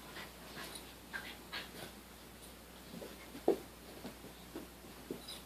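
Faint, scattered soft sounds from a dog, with snuffles and small whimpers and one short louder note about three and a half seconds in.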